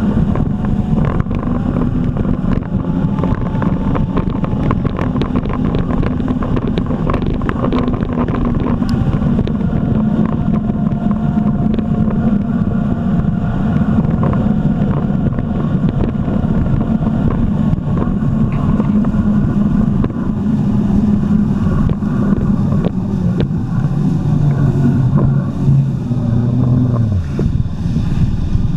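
Jet ski engine running steadily at speed, with many short sharp knocks over it. Near the end the engine note drops lower and falls away as the craft slows.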